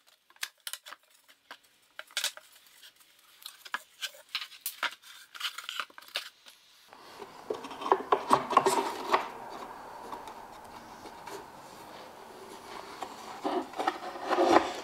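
Handling noises of a jigsaw being fitted into a wooden plywood holder: scattered light clicks and knocks of the saw's metal shoe against the wood blocks, then wood rubbing and scraping as the saw is pushed into place. The saw is not running. A steady faint background noise comes in about seven seconds in.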